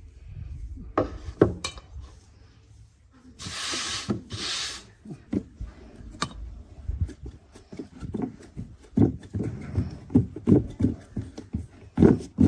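Hands working thin dough sheets on a wooden board while greasing them with melted butter and oil: two brief rubbing swishes, then a run of irregular soft thumps and knocks.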